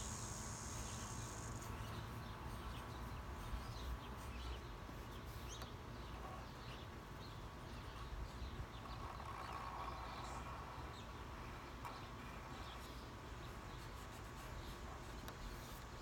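Quiet outdoor ambience: a high, steady insect trill that stops about two seconds in, then faint scattered chirps and light ticks over a low, steady rumble.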